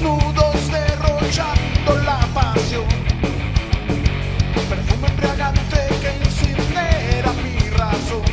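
Live rock band playing with distorted electric guitars, bass guitar and a drum kit, a steady beat of drum hits under a sustained low chord wash. A melodic line with bent, gliding notes rides over the top.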